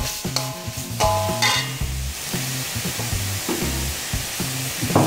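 A metal spatula scraping and stirring a spice paste that sizzles as it fries in a metal wok, with a few sharper scrapes. Background music with low bass notes plays underneath.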